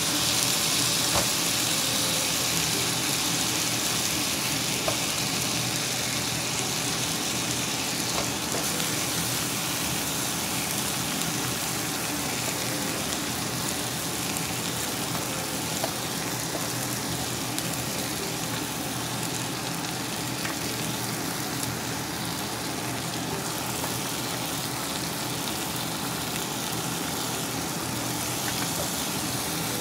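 Raw chicken and pork belly sizzling in a hot pot of sautéed onion and carrot: a steady frying hiss that eases a little over the first ten seconds or so as the pot fills. A few faint clicks are heard as pieces drop in.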